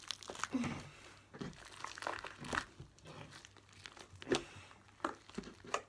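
A large lump of white slime being kneaded and squeezed by hand as Model Magic clay is worked in to make butter slime, giving irregular soft crackles and clicks.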